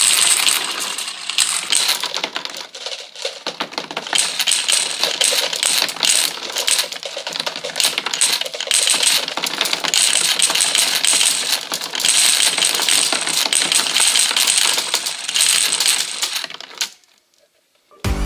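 Many marbles clicking and clattering against each other and the track of a cardboard marble run, a dense rapid stream of small hard clinks that dies away near the end.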